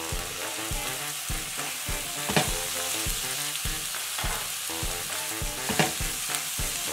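Chopped tomatoes and bell peppers sizzling in hot oil in a coated frying pan as a spatula stirs them, with two sharp scrapes of the spatula against the pan, one a couple of seconds in and one near the end. Background music with a steady beat runs underneath.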